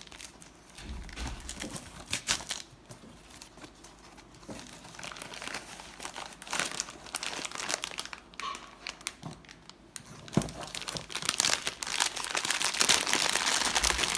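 Packaging crinkling and rustling as it is handled and torn open, in irregular bursts that get denser and louder about ten seconds in.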